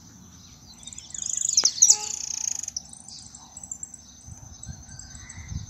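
A jilguero (a finch) singing a fast, high twittering song for about two seconds, starting about a second in.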